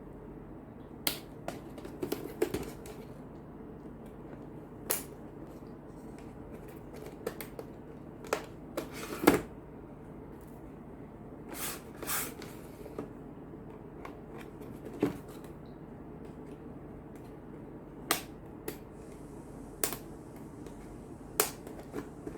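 Packaging of a small mixer being handled and opened: a dozen or so irregular clicks, taps and rustles, the loudest about nine seconds in, over a steady low hum.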